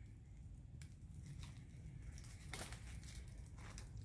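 Faint crinkling and rustling with a few short sharp clicks, over a low steady rumble.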